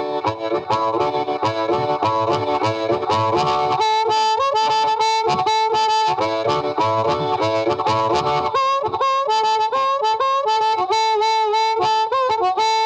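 Upbeat boogie-style intro music with a harmonica lead over a steady beat.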